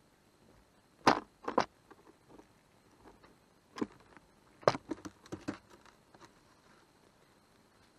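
A squirrel at the camera, knocking and scratching close to the microphone. There are a few sharp knocks about a second in, one more a little before four seconds, then a quick cluster of clicks and taps around five seconds in.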